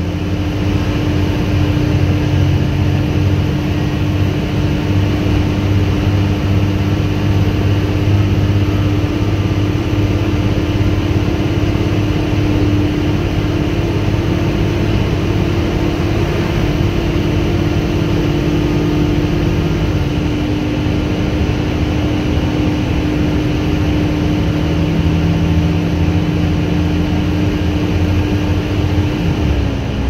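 Volvo B7TL double-decker bus running under way, its seven-litre six-cylinder diesel and driveline heard from inside the top deck. A steady whine, the sound that earns the type the nickname 'hoover', runs over the engine and drops in pitch about two-thirds in and again near the end.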